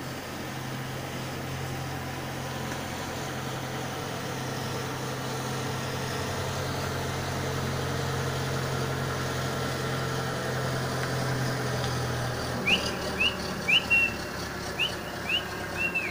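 A steady low hum, which fades out about twelve seconds in, followed by a run of short, high, whistled chirps, each rising then falling, that are the loudest sounds near the end.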